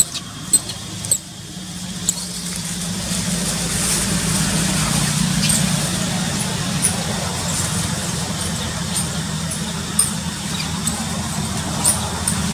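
Steady low engine hum from a motor vehicle running nearby, with short high chirps and clicks scattered over it.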